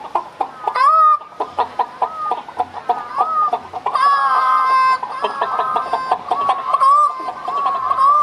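A man imitating a chicken with his voice into a handheld microphone: rapid short clucks broken by rising squawks, with a longer held squawk about four seconds in.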